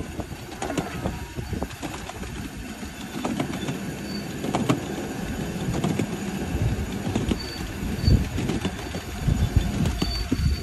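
Ride-on miniature train rolling along its track: a steady low rumble with occasional sharp clicks.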